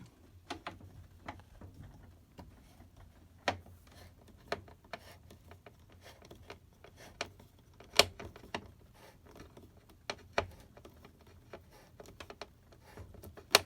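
Scattered sharp clicks and taps of a screwdriver and screw against the washer's metal front as the door lock's top screw is fitted and driven in, with the loudest click about eight seconds in.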